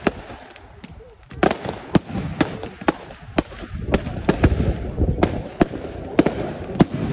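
Fireworks display: aerial shells bursting in an uneven string of sharp bangs over a low rumble, with a short lull about a second in before the bangs come thick and fast.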